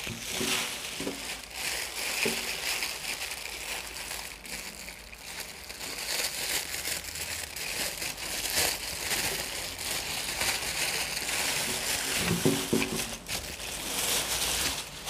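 Plastic wrapping crinkling and rustling as a microphone stand is pulled out of its plastic bag over bubble wrap, with many small crackles.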